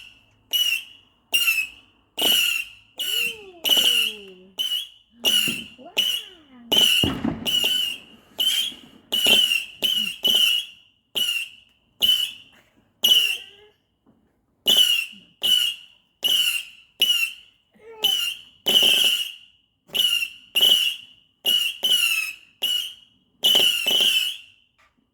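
A firework cake firing a rapid series of whistling shots, more than one a second, each a short, loud, squeaky whistle at the same high pitch.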